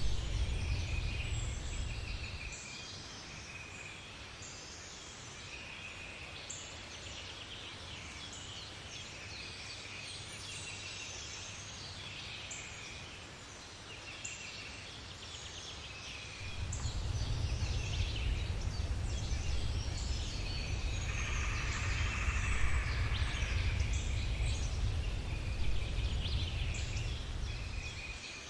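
Woodland bird ambience: many birds calling with short repeated calls, with a denser, rapidly pulsed sound for about three seconds past the middle. A low rumble fades out a couple of seconds in and returns after about sixteen seconds.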